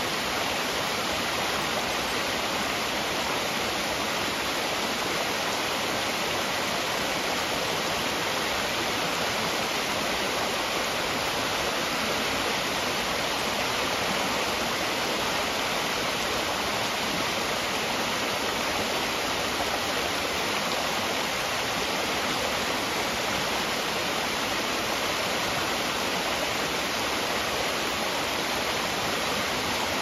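Small waterfall splashing down stepped rock ledges into a fast-flowing creek: a steady, unbroken rush of falling water.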